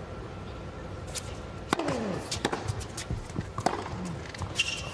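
Tennis serve and rally on an indoor hard court: a string of sharp racket strikes and ball bounces, irregularly spaced, starting about a second in. A short high squeak sounds near the end.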